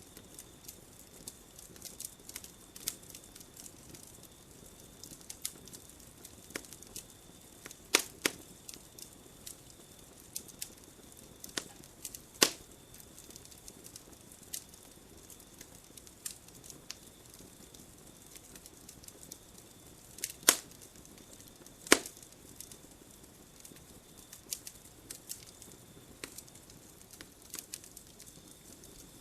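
Campfire wood crackling, with irregular sharp pops of varied strength, the loudest about 8, 12, 20 and 22 seconds in. Behind it are a faint steady hiss and a thin, steady high note.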